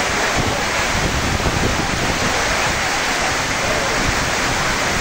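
Heavy rain pouring down steadily in a downpour, with wind buffeting the microphone in a low rumble.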